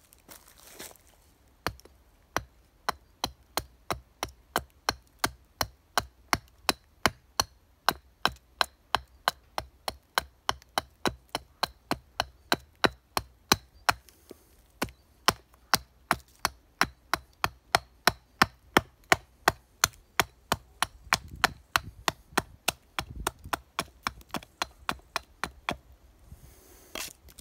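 Small hatchet chopping into the edge of a wooden board held upright on a stump chopping block, roughing out a carving blank to a drawn outline. Quick, light, even strikes at about two or three a second, with one short pause about halfway through.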